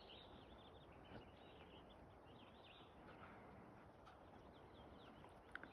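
Near silence with faint birds chirping in the background: short high chirps and twitters come and go, loudest near the start and around the middle.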